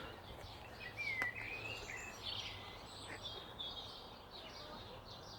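Faint birdsong: a few short chirps and whistled calls, over a quiet outdoor background.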